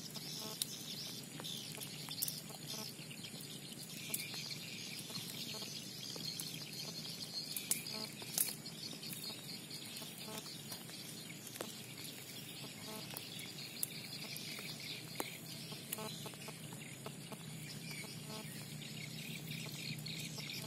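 Short clucking animal calls repeating every second or two over a steady high-pitched hiss, with a few scattered clicks.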